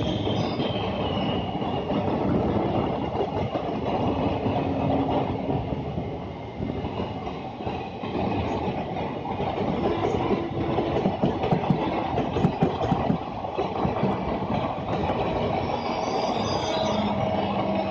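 Two Indian Railways passenger trains running side by side, heard from an open coach door: a steady wheel-on-rail rumble with wheels clacking over rail joints, densest about ten to thirteen seconds in, and a few faint squealing tones.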